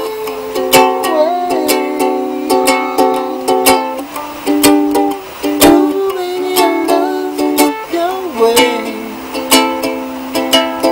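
Ukulele strummed in a steady rhythm, playing the song's chords with no singing.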